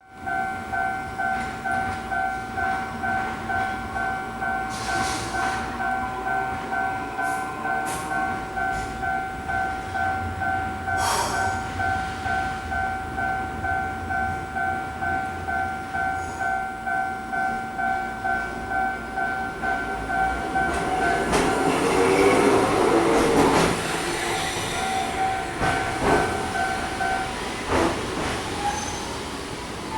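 Japanese level-crossing warning bell ringing in steady, evenly repeated two-tone dings. From about 20 seconds in, a Toyama Chiho Railway tram rolls over the crossing with its wheels squealing, and the bell stops a few seconds before the end.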